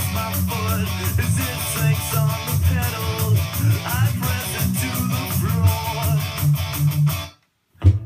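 A song with guitar and a singing voice playing through Dayton Audio B652-AIR bookshelf speakers, picked up by a phone's microphone in the room. The music stops abruptly about seven seconds in, and a short click follows just before the end.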